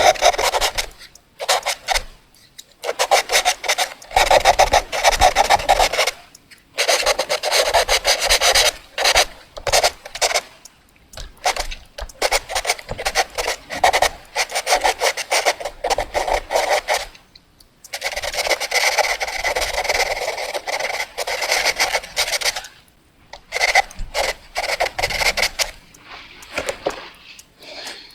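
Fast drawing on paper: quick scratchy back-and-forth strokes, coming in runs of a few seconds with brief pauses between them.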